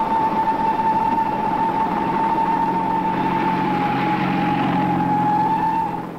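A train whistle blowing one long, steady high note over a rumbling running noise, fading away near the end.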